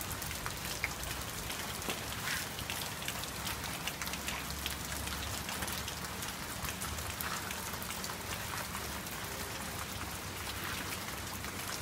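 Steady rain falling, with many small drop ticks.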